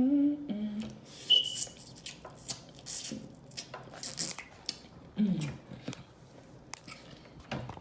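Close-up eating of a seafood boil: wet mouth smacking with a string of sharp clicks and snaps from shells, fingers and utensils, and a few short voiced sounds from the eater, near the start and about five seconds in.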